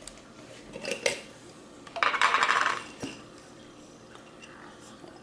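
Kitchen handling noise: a light knock about a second in, then a short rattling clatter of many small pieces lasting just under a second, like dried fruit or nuts shaken in a container.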